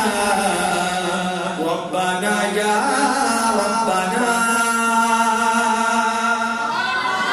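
Male naat reciter singing unaccompanied, drawing out long held notes with slides and ornaments between them.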